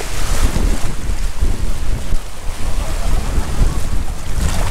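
Wind buffeting the microphone with a heavy, uneven rumble, over the wash of waves on the beach that swells near the end.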